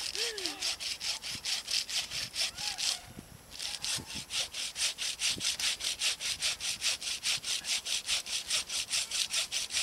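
Hand saw cutting back and forth through a Christmas tree's trunk, in quick even strokes of about four a second, with a short break a little after the third second.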